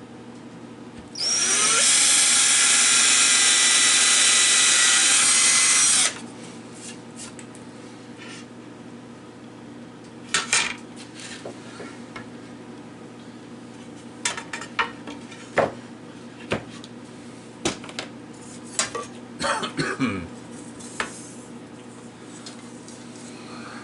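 Electric drill running for about five seconds, its whine rising as it spins up. Then a scattering of sharp knocks and clicks as tools and wood are handled.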